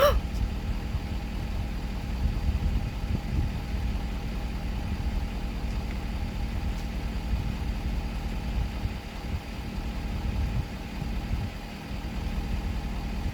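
Vehicle engine idling steadily with a low, even sound.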